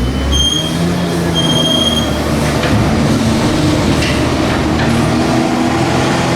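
Heavy tractor diesel engine running under load, its pitch shifting, with two short high-pitched metallic squeals in the first two seconds.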